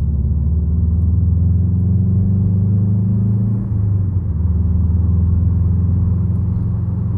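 A 1991 Subaru Legacy turbo's flat-four engine heard from inside the cabin while driving. It runs steadily and creeps slightly up in pitch, then drops in pitch with a brief dip just under four seconds in. The freshly built forged engine is being broken in on a rough, untuned base map.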